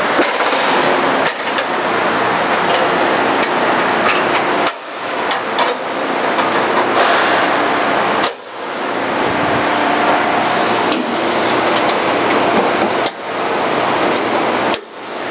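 The sheet-metal wheel-cover doors of a Forrest Model 214 bandsaw being closed and latched, making scattered clicks and knocks over a steady, loud rushing noise of shop fans. The rushing drops out briefly about four times.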